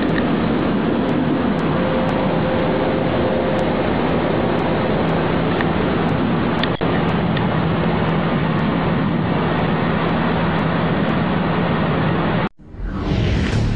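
Loud, steady rumbling drone with a low hum running through it, the kind of recording passed around as a mysterious sound of unknown origin. It cuts off suddenly near the end.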